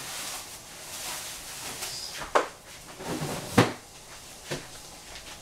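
Kitchen things being handled: three sharp knocks and clunks, like cupboard doors or containers, about two and a half, three and a half and four and a half seconds in, the middle one loudest, over a faint steady hiss.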